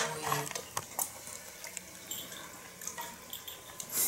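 Faint scattered clicks and ticks of a cat walking on a wooden floor, with a brief low hum at the start.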